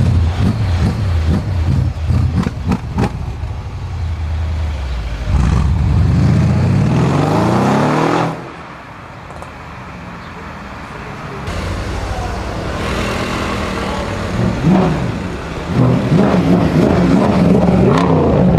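Mercedes-AMG car engine revving hard, climbing in pitch for a few seconds before it drops off sharply, then building up loud again near the end. Sharp pops come through in the first few seconds.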